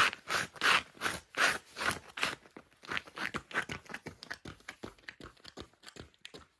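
Quick footsteps crunching on ice in work boots fitted with studded ice grips, the studs biting into the ice at about three steps a second and growing fainter as they go.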